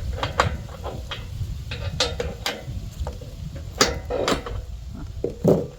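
Irregular metal clinks and knocks from a sawmill bunk being adjusted and lowered, the loudest knocks about four and five and a half seconds in, over a low rumble.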